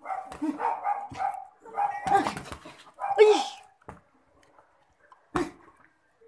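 A dog barking repeatedly in short bursts, with a sharp smack about five seconds in.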